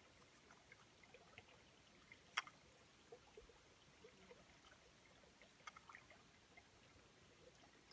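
Near silence, with faint scattered ticks and one sharp click about two and a half seconds in.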